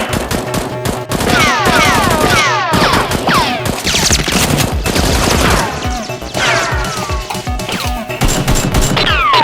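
Rapid bursts of machine-gun fire sound effects over background music, with quick falling whistles running through the shots.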